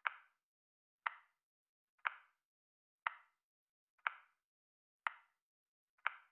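Countdown timer ticking once a second: seven short, crisp ticks, each fading quickly, with silence between them.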